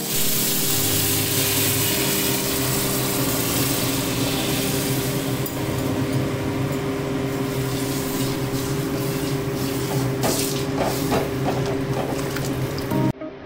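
Boiled chana dal poured into hot fried masala in a steel kadhai, sizzling loudly and then easing as the liquid settles, with a steel ladle clinking and scraping against the pan during stirring in the second half, over a steady low hum.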